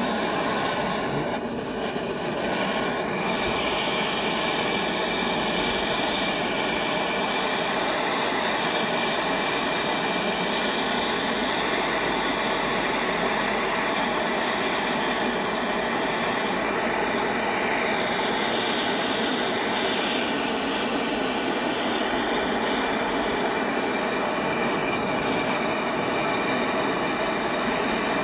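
Handheld gas torch burning steadily into a crucible of molten sterling silver, an even, unbroken rushing noise.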